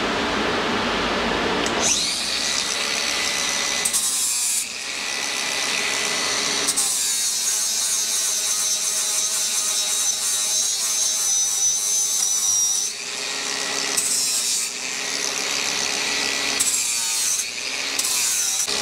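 Handheld angle grinder grinding steel tubing, starting about two seconds in and going in several passes with short changes between them. It is dressing down a freshly cut motorcycle side stand.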